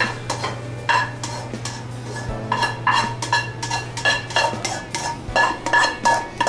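Skillet and ceramic bowl clinking and scraping as sautéed vegetables are scraped out of the pan into the bowl: a run of sharp clinks, each ringing briefly, coming two to three a second from a couple of seconds in.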